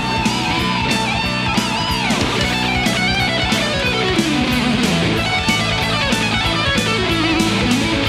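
Hard rock band recording in an instrumental passage: electric guitar playing sliding, bent notes over a steady drum beat and bass, with no singing.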